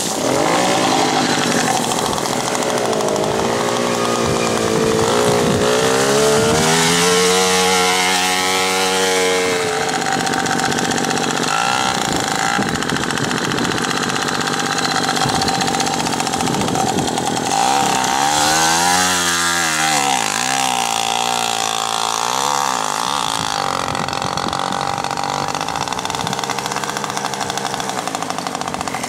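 Small Puch 50cc two-stroke engines buzzing and revving in mud. The pitch rises and falls repeatedly in two spells, one in the first third and one past the middle, over a steady high buzz.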